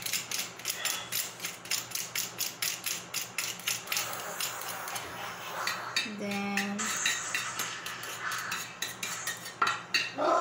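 Knife scraping and tapping minced garlic off a metal garlic press, a quick run of metal clicks about three or four a second, then a spoon stirring garlic into tomato sauce in a glass baking dish with sparser clinks.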